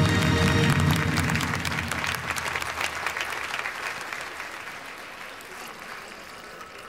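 Audience applauding as a musical number ends; the music stops about a second in and the clapping gradually dies away.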